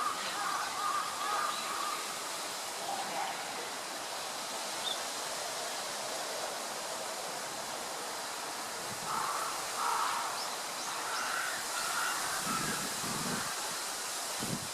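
Steady outdoor background noise, with a few bird calls standing out at the start and again about two-thirds of the way through.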